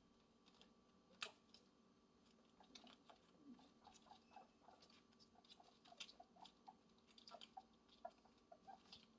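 Guinea pig chewing: faint, quick crunching clicks in irregular runs, growing busier partway through.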